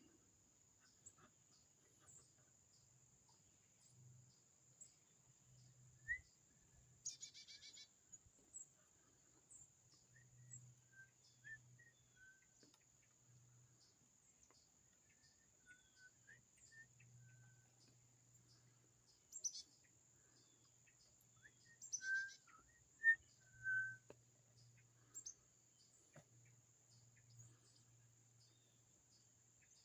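Faint outdoor ambience: a steady high insect trill pulsing evenly, with scattered soft bird chirps and a few short high trills, the clearest about 7 and 22 seconds in.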